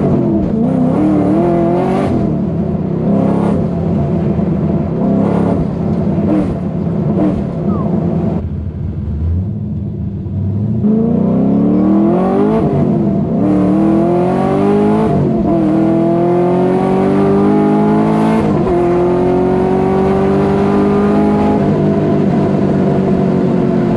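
LS3 V8 in a Nissan 350Z being driven hard: the revs rise and fall several times, then ease off briefly around ten seconds in. It then pulls hard through three upshifts, each a rising whine that drops sharply, before settling into a steady run with the revs slowly climbing.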